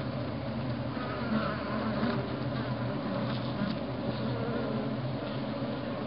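Honeybee colony humming on its comb: a steady, low drone of many bees at once.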